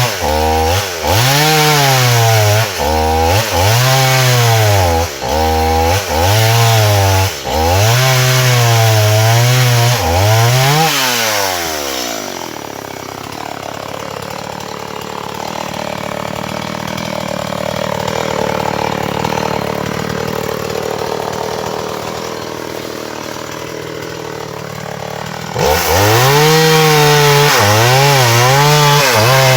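Two-stroke chainsaw cutting hard, dry matataúba wood, its engine revving up and dropping back over and over as the chain bites. About eleven seconds in it winds down, and a softer steady noise follows for some thirteen seconds. Near the end it suddenly comes back loud at full revs.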